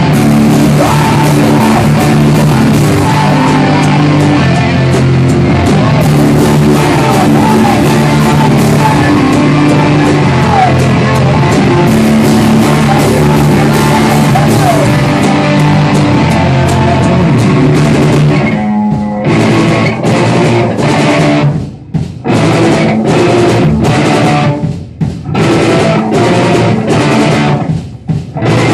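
Rock band playing loud guitar-driven rock with drum kit. About two-thirds of the way in, the music turns stop-start, breaking off for short gaps several times.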